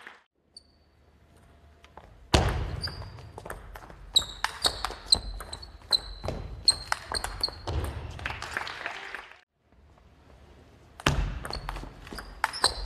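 Table tennis ball in play during rallies: quick sharp clicks of the ball off the bats and table, some with a short ringing ping, about two to three a second. The first rally starts with a loud serve a couple of seconds in and runs to about two-thirds through; after a short pause a second rally starts near the end.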